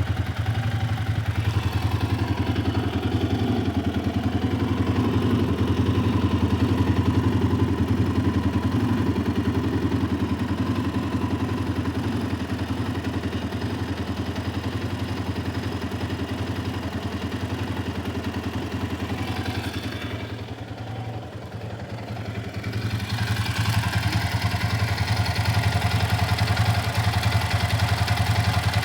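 Yamaha Raptor 700R's single-cylinder four-stroke engine idling steadily with its exhaust freshly wrapped. About two-thirds of the way through it briefly gets quieter and duller, then comes back to the same idle.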